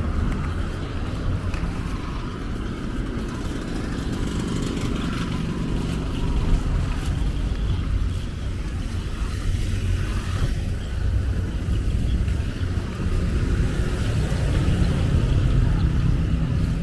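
Road traffic: cars and motorcycles driving past on the street, a steady low engine and tyre rumble that gets stronger near the end.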